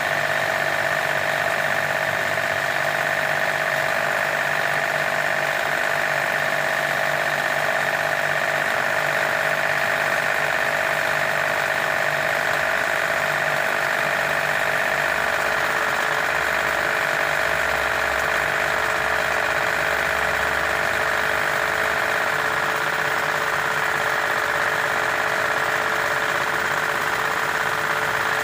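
A machine motor running steadily, a constant whine that does not change.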